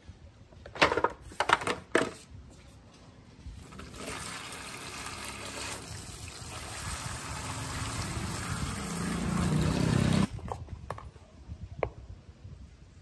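A stream of water pouring and splashing onto the belt, rollers and parts inside the opened plastic housing of an old belt vibrator machine, growing louder until it cuts off suddenly. Just before it, a few sharp knocks of the plastic housing being handled.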